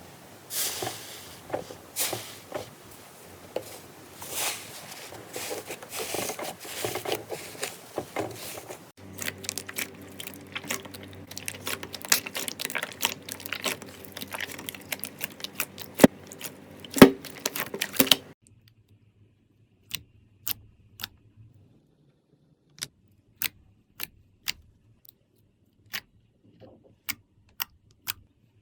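Slime being handled and squeezed, giving a dense run of crackling, popping clicks. About two-thirds of the way through this stops, and only single sharp clicks follow, spaced about a second apart.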